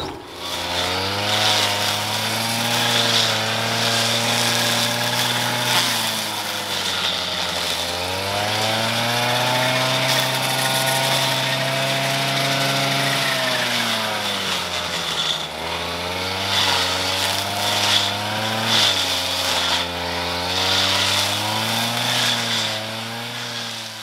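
Engine-driven brush cutter running while mowing tall grass, its engine note rising and falling as the throttle is worked, with two deeper dips partway through.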